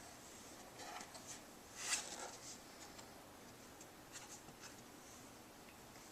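Faint rustling and scraping of paper, with the loudest soft scrapes about one, two and four seconds in.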